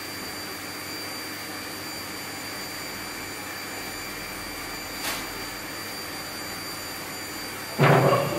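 A steady mechanical hum throughout, with a faint click about five seconds in. Near the end, a loud metallic scrape and clatter as a stainless steel tray loaded with smoked fish is lifted off the steel smoker.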